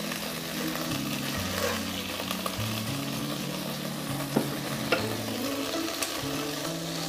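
Cooking oil sizzling steadily in a nonstick wok after frying chicken, with a few light clicks of a utensil against the pan about four to six seconds in.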